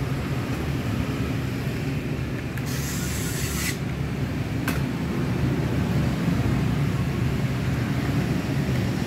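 A small electric screwdriver whirs for about a second while driving a screw on a 2.5-inch SSD's metal drive caddy. About a second later comes a single sharp click. A steady low hum runs underneath.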